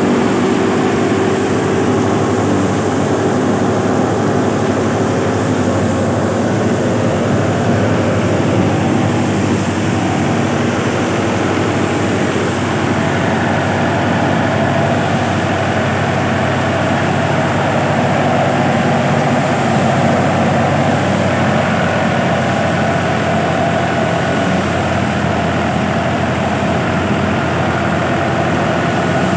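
Fiat tractor's diesel engine running steadily.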